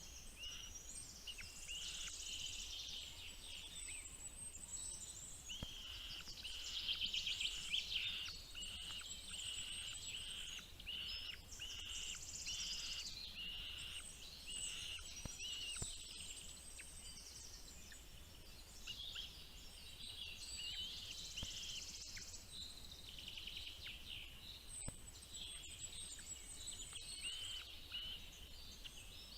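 Many small birds chirping and trilling together without pause, a dense high-pitched chorus of short calls.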